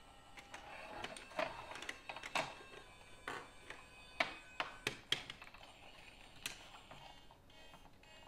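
Plastic LEGO bricks clicking and clattering as pieces are handled, sorted and pressed together: a string of irregular sharp clicks, some louder than others.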